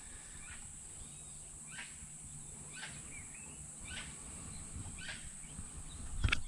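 A bird calling repeatedly, a short call about once a second, over steady outdoor background noise. A few louder knocks come near the end.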